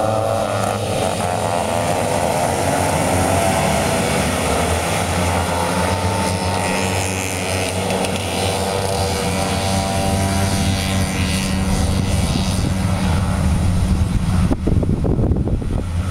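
Several vintage two-stroke snowmobile engines racing, their pitches gliding up and down as the sleds run past. Near the end rough wind noise buffets the microphone.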